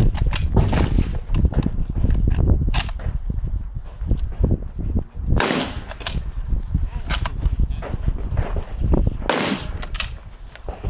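Lee-Enfield .303 British bolt-action rifle firing. Two loud shots with a ringing tail come about halfway through and near the end, with sharper clicks and knocks between them over a steady low rumble.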